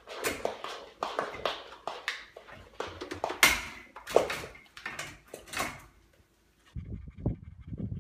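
A young goat pushes and paws at a metal pet gate, rattling it with a quick run of sharp knocks and clatters. The loudest knock comes about three and a half seconds in. After a brief silence, a low uneven rumble starts near the end.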